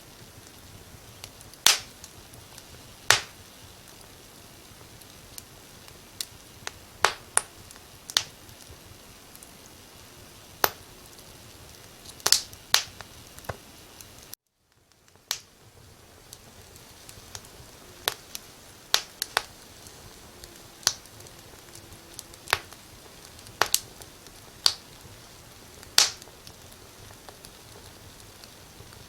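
Firewood burning in a fireplace: irregular sharp crackles and pops, one or two a second, over a soft steady hiss. The sound cuts out briefly about halfway through.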